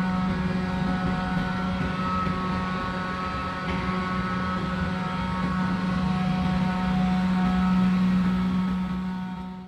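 Steady machinery hum in a machine shop: a low drone with several fainter, higher whining tones above it. It fades out right at the end.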